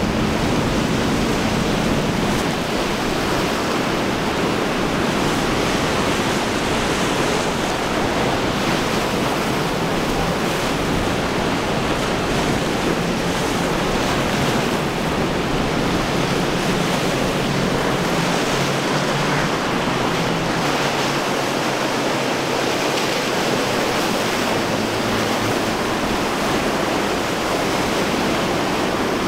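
Rough surf and breaking waves, with wind on the microphone: a steady, even wash of water noise.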